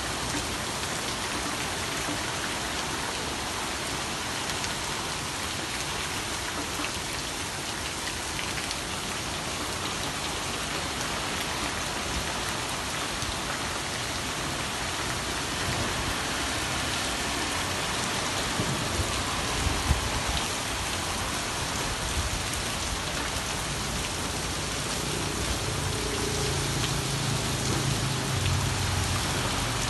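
Steady rain falling on a flooded street and paving, a dense even hiss of drops on water and pavement. A few low thuds stand out about two-thirds of the way through, and a low droning rumble rises under the rain near the end.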